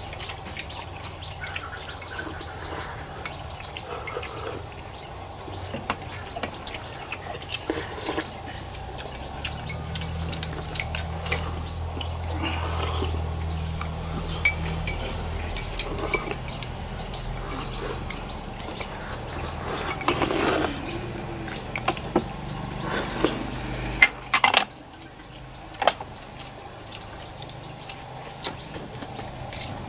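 Several people eating pho: slurping noodles and broth, with spoons and chopsticks clinking against bowls, over a low steady hum.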